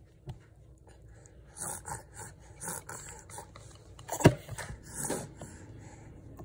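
A baby's short breathy huffs and mouth noises while being spoon-fed, coming every second or so, with one sharp knock about four seconds in.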